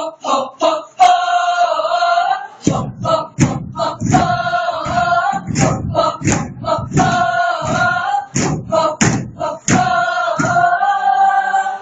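A speaking choir of many voices chanting in unison, holding four long sung notes separated by quick clipped syllables.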